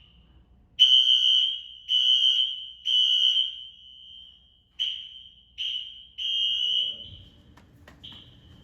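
Wheelock NS fire alarm horn sounding in blasts of one high tone: three evenly spaced blasts, then a broken, uneven run of shorter ones. The horn is not smart-sync and is glitching under the panel's walk-test sync commands.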